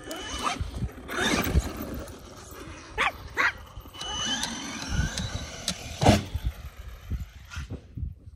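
A small dog barking several times over the whine of an electric RC monster truck driving across dirt.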